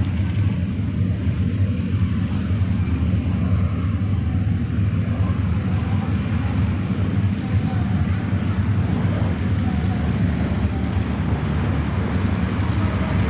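Lockheed C-130H Hercules in a low pass, its four Allison T56 turboprop engines and propellers making a deep, steady drone.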